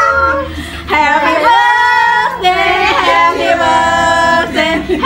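Women's voices singing a birthday song, with long held notes.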